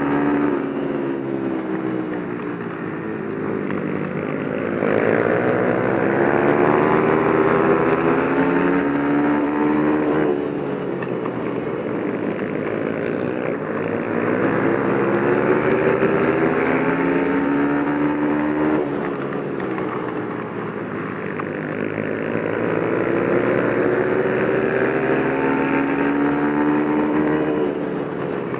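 Onboard sound of a flat-track racing motorcycle's engine at speed. The revs climb for several seconds and then drop back, three times over, with wind rushing past.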